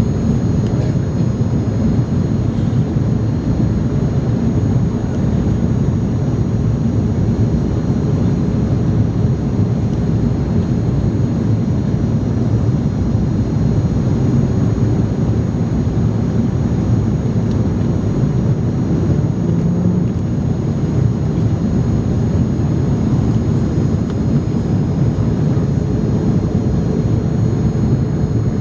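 Steady cabin noise inside an Airbus A300 airliner in flight: an even, low rumble of engines and airflow, with a few faint, steady high whines above it.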